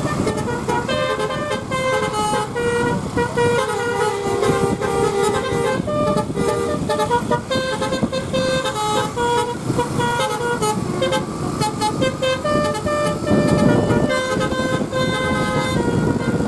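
A bus's basuri telolet horn playing a tune of quick, stepped notes, almost without pause, over the noise of the bus engine and road.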